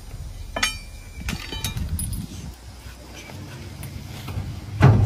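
A heavy dump-truck tire being rolled and handled on dirt over a steady low rumble, ending in one loud heavy thud about five seconds in.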